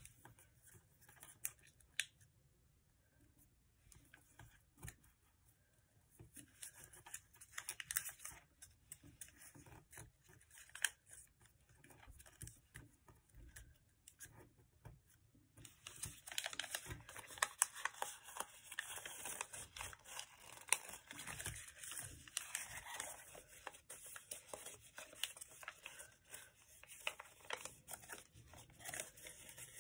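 A sheet of paper being folded by hand, crinkling and scraping as creases are pressed down: scattered rustles at first, turning into a steadier, denser crinkling about halfway through.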